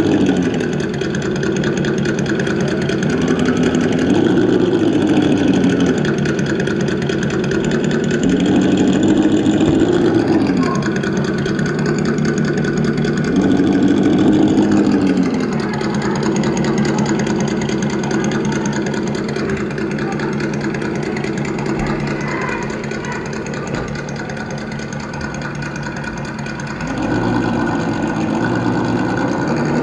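Simulated engine sound from an ESS DUAL sound unit's two speakers on a Traxxas TRX-4 Sport RC crawler. It idles and revs up and back down about three times, then settles to a steady idle and starts revving again near the end.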